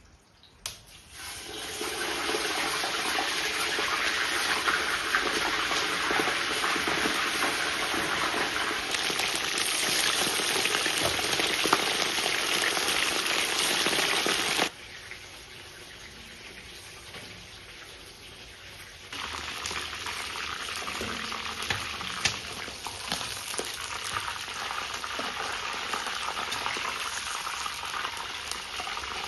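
Steady hissing noise, like frying or running water. It drops abruptly about fifteen seconds in and comes back louder about four seconds later.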